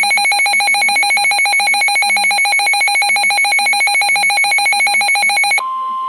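Loud rapid trilling electronic alarm, like a phone bell, from a weather alert radio. It cuts off suddenly about five and a half seconds in and gives way to a steady single-pitch tone: the NOAA Weather Radio 1050 Hz warning alert tone that comes before a new warning message.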